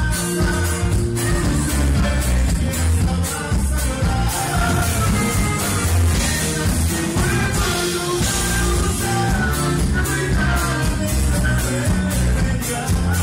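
Live norteño band music: guitars, electric bass and drum kit playing a steady, loud tune, with held melody notes over a strong bass.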